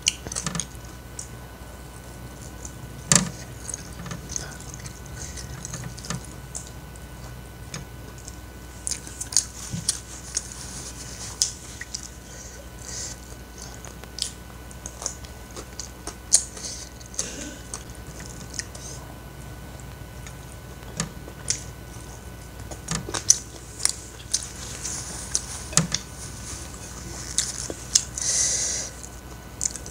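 Close-miked chewing and wet mouth sounds of a person eating soft food, rice and boiled cassava leaves, by hand. Sharp smacks and clicks come every few seconds, with a longer wet smacking hiss near the end.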